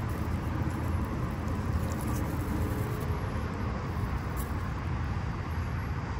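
Steady low outdoor rumble with no clear events, the kind of background made by wind on the microphone and distant traffic.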